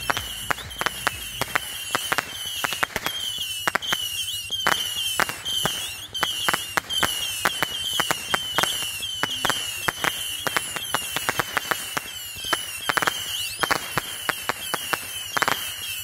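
Fireworks going off in quick succession: many sharp pops and bangs close together. Under them runs a high chirp that repeats about twice a second.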